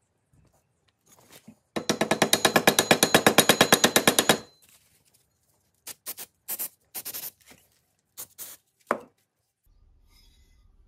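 A workshop tool working on metal gives a fast, even rattle of about twelve pulses a second for around two and a half seconds. It is followed by a few short scrapes and knocks.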